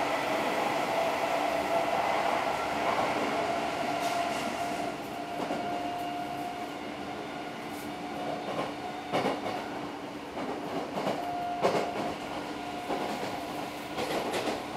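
Interior running sound of an Odakyu 4000 series electric train's motor car at speed: a steady hum and whine from the traction motors and Mitsubishi IGBT VVVF inverter over a rumble of the wheels on the track. The wheels click and clack over rail joints, and another train passes alongside near the end.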